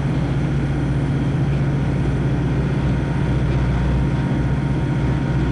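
Boat engine running steadily, a constant low hum under a broad rushing noise.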